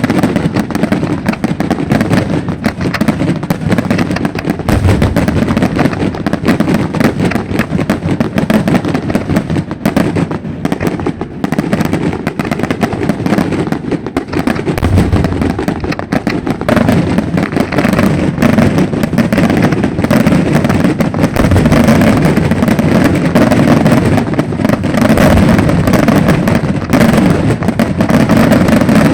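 Fireworks display: a dense, continuous barrage of rapid crackling bursts with an occasional deep boom, growing louder about two-thirds of the way through.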